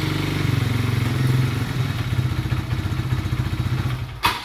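2005 Polaris Phoenix ATV's Aeon-built single-cylinder engine running at idle after its new starter clutch and stator, the idle still not fully set. Near the end there is a sharp knock and the engine is shut off and runs down.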